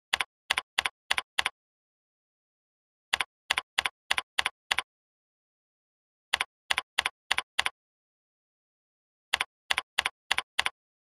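Computer keyboard keystrokes: four quick runs of five or six sharp clicks, about three a second, with pauses of about two seconds between runs. Each run is one decimal number typed in and entered.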